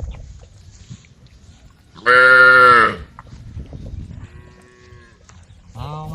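Cows mooing: one loud, drawn-out moo about two seconds in, a fainter moo from a cow further off a couple of seconds later, and another loud moo starting near the end.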